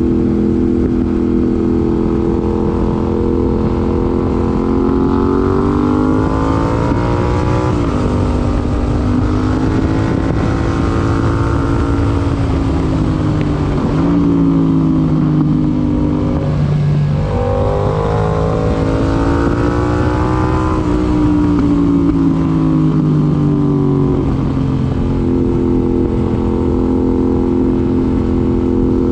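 Yamaha MT-07 parallel-twin engine through an IXIL IXRACE MK2 aftermarket exhaust, pulling up through the revs and dropping sharply at gear changes about a third and half way through. It then eases off and picks up again, steadying near the end, over a constant low wind rumble.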